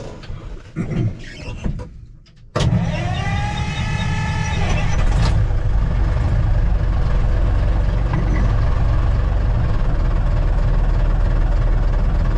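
Brockway 260 truck's diesel engine starting about two and a half seconds in: it catches with a sudden loud rumble and a whine that rises and levels off for about two seconds, then settles into a steady loud idle.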